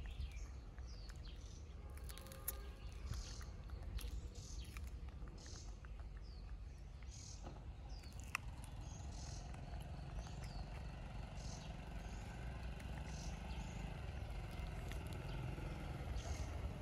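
Small birds chirping over and over above a steady low rumble of outdoor background noise, with a faint engine drone building in the second half.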